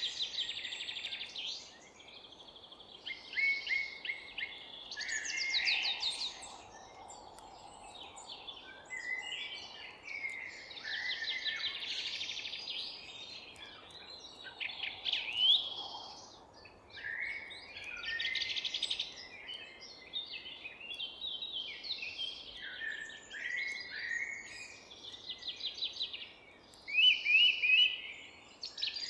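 Several songbirds singing in a forest, with overlapping phrases of trills, chirps and quick whistled notes every few seconds over a faint steady background hiss.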